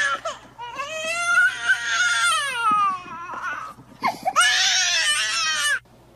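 A toddler screaming and crying in long, high wails, two of them, the second cutting off suddenly near the end.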